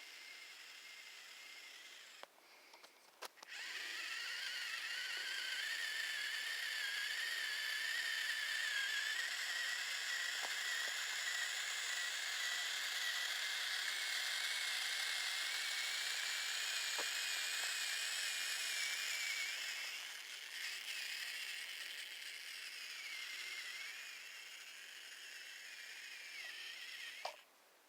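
RC crawler truck's motor and gears whining under throttle, the pitch wavering up and down. The whine drops out briefly about three seconds in, gets softer about two-thirds of the way through, and cuts off near the end.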